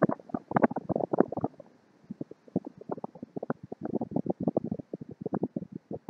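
Wind buffeting the camera's microphone: irregular crackling and popping, with a brief lull about two seconds in.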